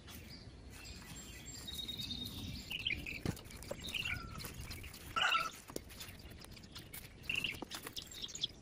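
Gloved hands scooping and spreading compost over seed furrows, with soft rustling and scraping of soil and mulch. A few short bird chirps sound over it, the loudest about five seconds in.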